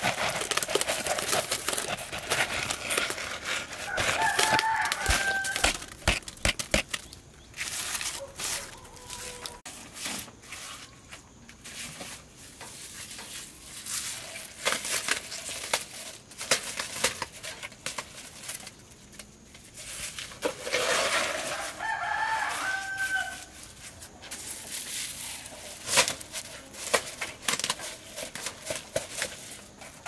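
A rooster crows twice, about four seconds in and again about twenty-one seconds in, over intermittent knocks, scrapes and plastic crinkling as wet concrete is tipped from a bucket into a plastic-lined bamboo mould.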